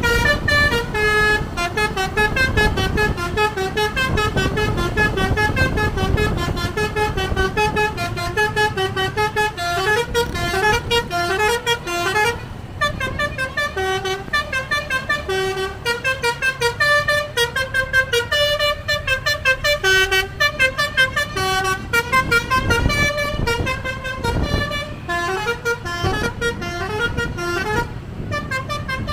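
Basuri telolet musical air horn on a bus playing a tune as a fast run of short notes stepping up and down, with short pauses about twelve seconds in and near the end. The bus engine's low rumble runs underneath.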